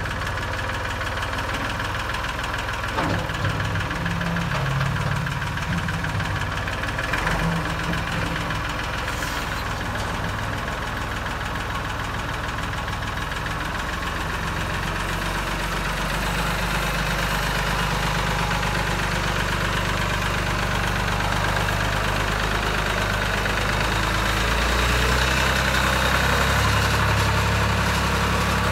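Massey Ferguson 40 tractor's engine running steadily, with a couple of brief knocks in the first few seconds; it grows louder in the second half as the tractor moves off.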